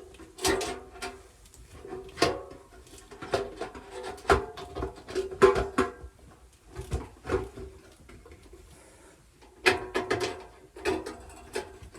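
Sheet-metal burner pan of a gas fire table being fitted into its metal frame: irregular knocks and clanks, each ringing briefly, with a cluster of hits near the end.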